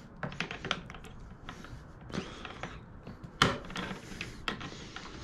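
Pliers tightening a nut inside a hard plastic shroud: scattered clicks, knocks and scrapes of metal on the nut and on the plastic as it is handled, the loudest knock about three and a half seconds in.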